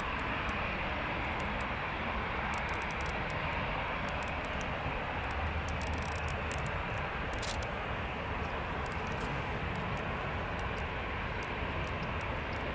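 Airbus A320 jet engines running at low taxi thrust as the airliner turns and lines up on the runway: a steady rush with a low rumble underneath, holding level throughout.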